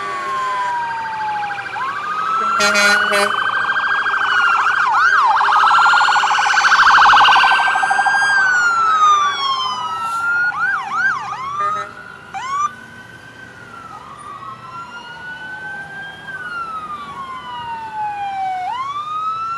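Several emergency-vehicle sirens sound together, slow wails overlapping with fast yelping bursts. They are loudest a few seconds in, then quieten after about twelve seconds to a single siren wailing slowly up and down.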